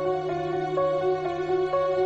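Background music: a held low note under a slow melody of notes changing about twice a second.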